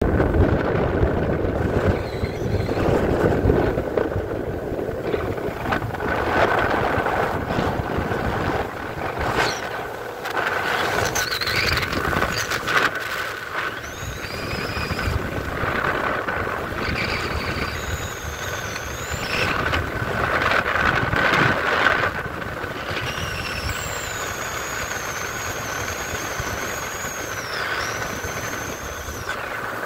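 Bryant 192 bowrider under way at about 60% power on its 5.7L MerCruiser V8 and Alpha One sterndrive. Wind gusts on the microphone over the engine and hull-on-water noise, with a steady high tone and wavering high whistles, mostly in the second half.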